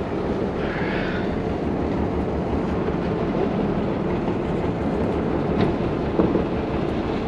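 Boat engine running with a steady low rumble and a fast pulsing beat, with a couple of light knocks on deck late on.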